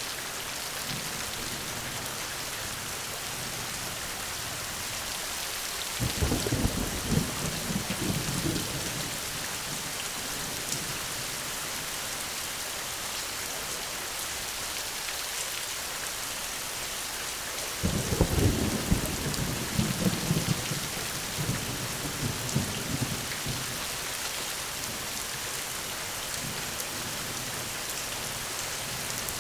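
Steady rain falling, with two rolls of thunder, one about six seconds in and one about eighteen seconds in, each starting suddenly and rumbling for a few seconds before fading.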